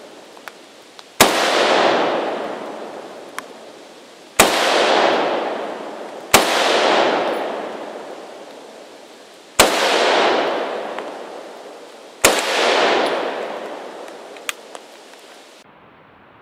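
Ruger Mini-14 rifle firing five single shots at uneven intervals, each crack followed by a long echo rolling off through the forest for two to three seconds.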